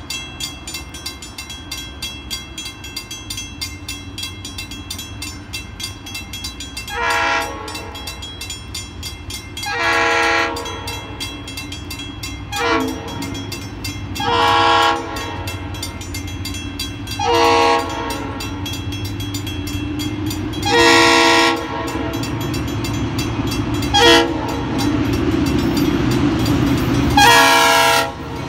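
Diesel freight locomotive's air horn sounding for a grade crossing: eight chord blasts, alternating shorter and longer, starting about a quarter of the way in. Underneath, a crossing bell rings rapidly and steadily, and the locomotive's engine rumble grows louder as it approaches near the end.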